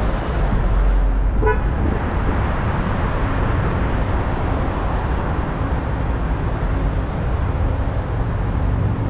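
Steady low rumble of road traffic, with one short toot about one and a half seconds in.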